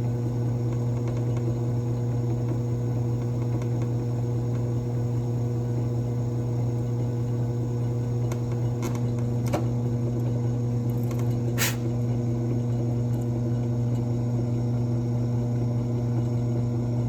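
Benchtop drill press motor running with a steady low hum while it is pressed down to flatten a model car's axle head. A few light clicks come about halfway through.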